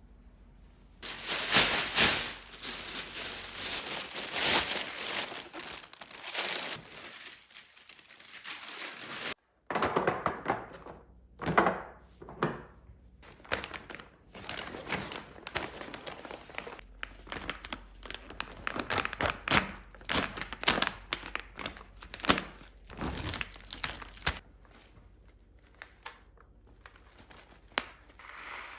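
Packaging being handled: repeated crinkling and rustling with occasional tearing and light knocks, irregular and on and off throughout, broken by a sudden cut about nine seconds in.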